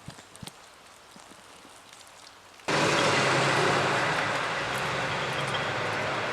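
A few faint clicks, then about two and a half seconds in a loud, steady rushing noise starts suddenly and holds.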